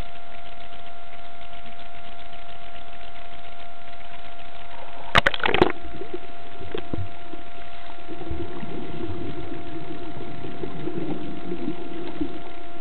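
Camera plunging into the sea with a short splash about five seconds in, then muffled underwater sound with a low bubbling from the snorkeler's breath for a few seconds near the end, over a steady hiss.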